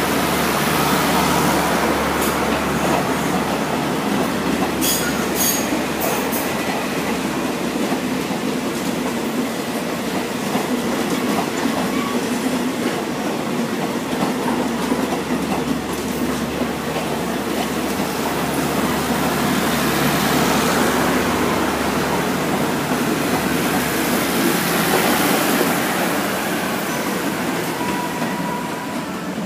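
Passenger coaches of a departing express train rolling past at speed, a steady rumble of steel wheels on the rails with a few sharp clacks about five seconds in. The sound fades near the end as the last coach passes.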